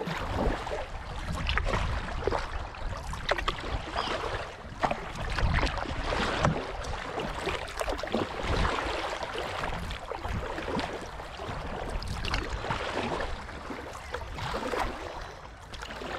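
Kayak paddle blades dipping into calm water, splashing about once a second with water dripping and trickling between strokes.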